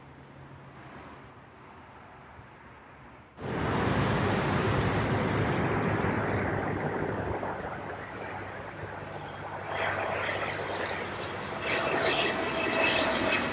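Faint background noise, then, about three seconds in, the loud noise of a landing airliner's engines cuts in abruptly and stays loud, with high whining tones over it and a further swell near the end.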